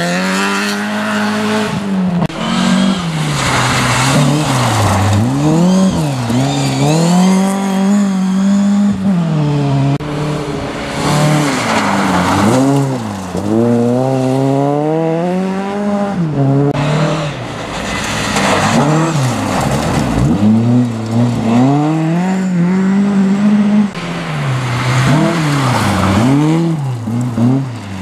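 Rally cars taking a gravel bend one after another, among them a Peugeot 306 and a Volvo saloon: the engines rev high, drop away at each lift or gear change and climb again, over and over, with the tyres scrabbling and spraying gravel.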